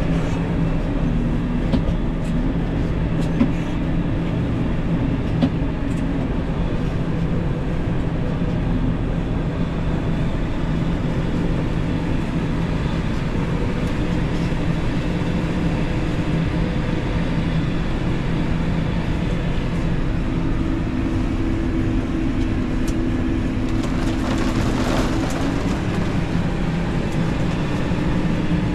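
Steady drone of a tractor engine and a Claas Jaguar forage harvester chopping corn, heard from inside the tractor cab, with a few light knocks in the first several seconds.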